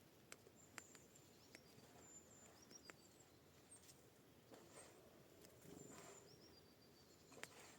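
Faint high-pitched bird calls: short chirps and two quick descending series of notes, among scattered sharp taps.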